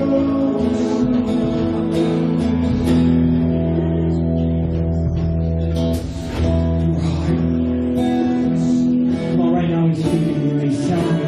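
Worship music with strummed guitar holding sustained chords over a low bass note.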